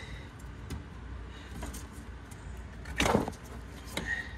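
Plastic wiring connector being worked loose and unplugged from the top of a fuel pump module: small clicks and handling noise, with a short clattering scrape about three seconds in and a brief squeak near the end.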